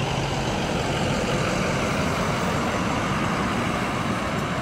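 Road traffic: motor vehicles running along the adjacent street, a steady rushing noise that swells slightly about a second in.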